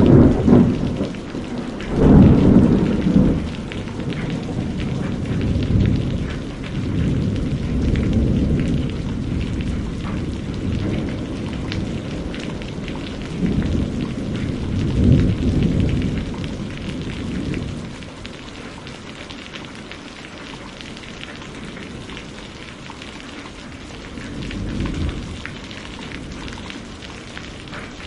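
Thunderstorm: steady heavy rain with rolling thunder that swells and fades several times, loudest in the first few seconds and again about halfway through, leaving mostly rain in the latter part with a smaller rumble near the end.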